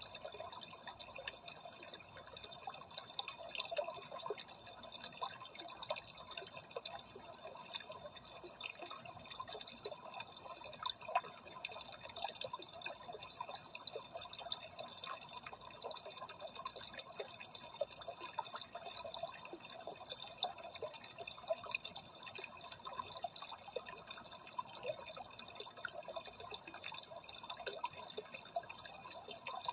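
Water in a freshwater aquarium trickling and splashing steadily, a continuous patter of many small drips.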